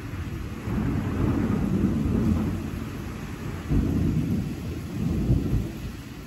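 Thunder rolling in low rumbles over steady rain. The rumble swells about a second in, again about four seconds in and once more just after five seconds, then fades near the end.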